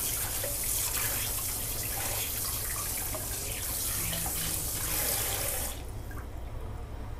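Water running steadily from a kitchen tap, cutting off suddenly about six seconds in.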